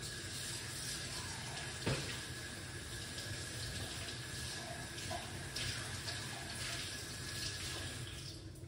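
Water running steadily from a kitchen tap, cut off just before the end, with a single knock about two seconds in.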